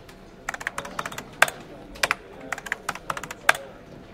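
Keyboard typing sound effect: a run of uneven key clicks, several a second, starting about half a second in, with a few strokes much louder than the rest.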